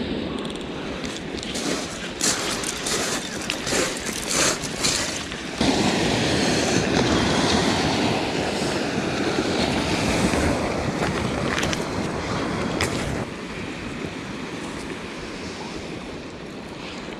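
Clicks and knocks of close hand-handling. About five and a half seconds in, a loud steady rush of wind and surf on the microphone starts suddenly, then drops back abruptly around thirteen seconds in.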